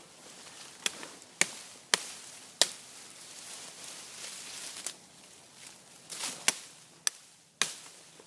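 A large fixed-blade bushcraft chopping knife striking wood, about eight sharp chops. The first four come about half a second apart, then after a pause come a single chop and then three more in quick succession.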